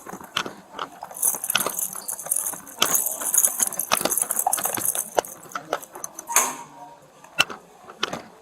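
Irregular metallic jangling and clicking, like keys or cuff chains on officers' gear being handled, with two spells of brighter rattling hiss.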